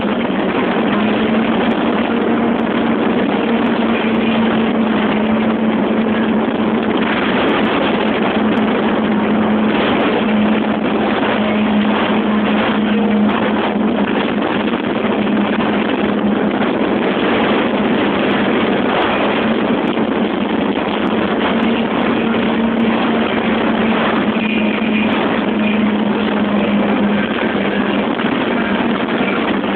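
Speedboat running at speed on open water: a loud, even rush of wind and water over a steady engine hum that fades in and out, with scattered short knocks.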